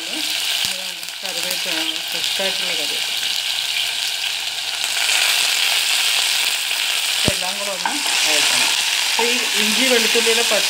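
Ginger, green chillies and curry leaves sizzling in hot oil in a saucepan. The sizzle grows louder about five seconds in as the curry leaves hit the oil, and a spoon stirs the pan near the end.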